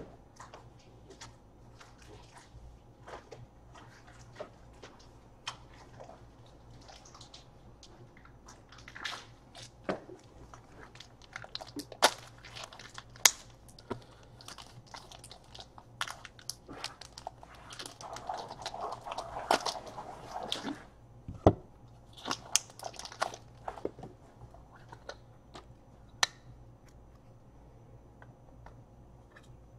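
Trading cards and their plastic sleeves and holders being handled: irregular clicks, taps and crinkling of plastic, with a few sharp clicks and a longer stretch of rustling a little past the middle.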